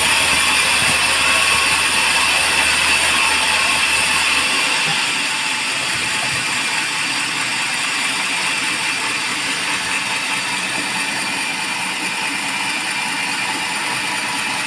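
Band sawmill running steadily, a dense mechanical noise with a high whine.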